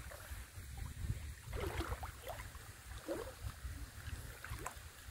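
Faint water sloshing and a few small splashes from someone wading through a shallow stream, over a steady low rumble.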